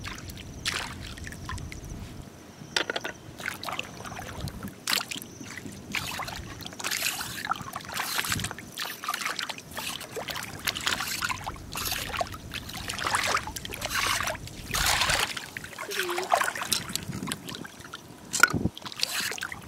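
Hands and rubber wading boots splashing and sloshing in shallow seawater, in short irregular splashes throughout.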